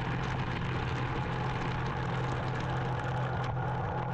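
CNC mill cutting titanium with an 8-flute Kennametal HARVI IV end mill under flood coolant: a steady low machine hum and the hiss of coolant spray. The cut itself is barely heard, the sign of a smooth, stable cut at a 10% radial step-over and 250 surface feet per minute.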